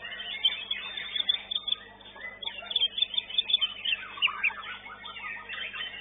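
Caged contest songbirds singing: rapid, varied strings of chirps and whistles, busiest in the second half.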